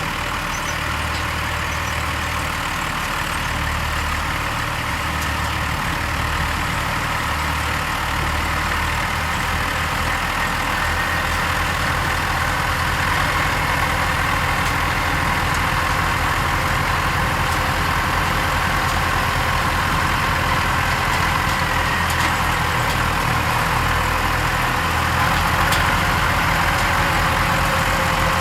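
Tractor engines and a potato harvester's machinery running steadily in the field, with a steady higher tone over the engine's drone, growing a little louder about halfway through.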